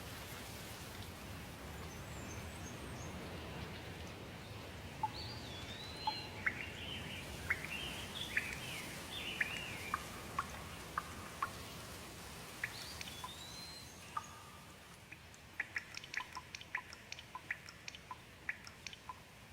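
Steady rain with birds singing over it: an arching whistled phrase heard three times, a run of chirps in the middle, and a quick scatter of short sharp ticks near the end as the rain grows quieter.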